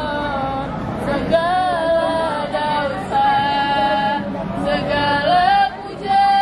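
Singing: one voice carrying a melody that slides and bends in pitch, with long held notes and a short break near the end.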